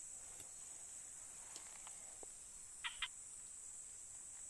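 Evening insect chorus of crickets, a steady high-pitched chirring, with two short calls about three seconds in.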